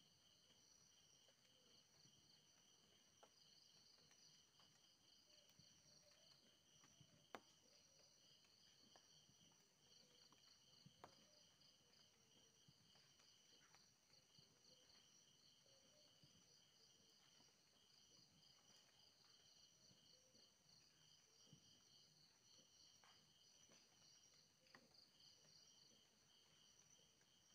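Faint chorus of night insects chirping in rapid pulsing trills at several high pitches, with a couple of faint clicks about seven and eleven seconds in.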